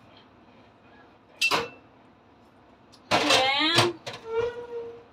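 A young child's voice: a loud squeal that slides down in pitch about three seconds in, then a drawn-out whiny cry. A short, sharp clatter comes about a second and a half in.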